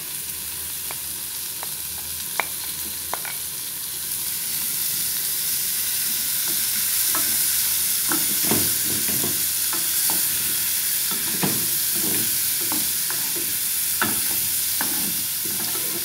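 Diced calabresa sausage, onion and garlic sizzling as they fry in oil in a pan, with a steady hiss that grows louder about four seconds in. A wooden spoon knocks and scrapes against the pan as the food is stirred.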